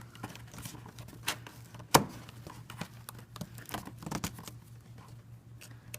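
Plastic box rivets and cardboard being handled: scattered light clicks and rustles, with one sharp click about two seconds in, over a faint steady low hum.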